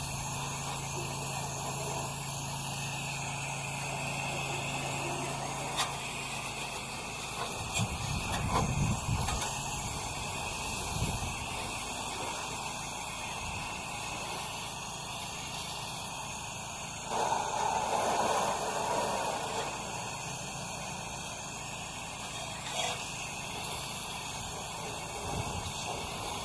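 Pressure washer gun spraying a water jet onto house siding and gutters: a steady hiss of spray, louder for a second or two about eight seconds in and again around seventeen to nineteen seconds in.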